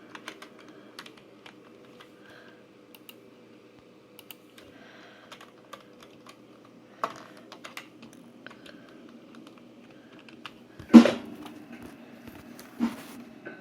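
Scattered small clicks and taps over a steady low mechanical hum, with one loud thump about eleven seconds in and a smaller thump shortly after.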